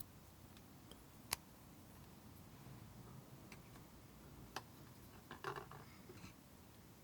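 Near silence broken by a few small clicks from handling: one sharp click about a second in, another past the middle, and a short cluster of softer clicks soon after.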